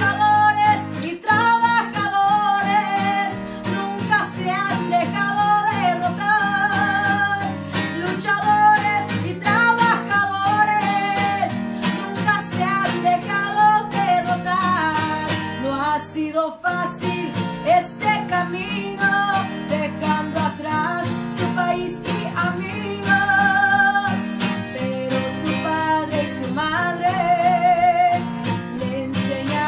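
A corrido sung in Spanish over strummed acoustic guitar, the sung melody wavering with vibrato above a steady rhythmic accompaniment.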